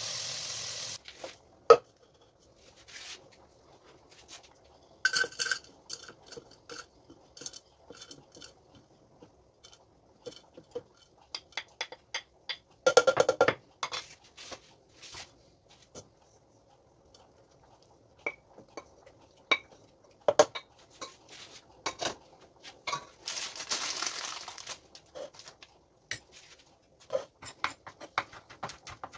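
Kitchen prep sounds: cherry tomatoes sizzling in a pan for about the first second, then scattered knocks and clinks of a spoon, dishes and a plastic blender beaker on a wooden cutting board. Near the end, a knife chops parsley on the board in quick sharp taps.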